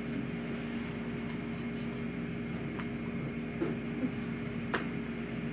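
Steady electrical hum of a room appliance over a faint hiss, with a few light ticks and one sharper click a little before the end.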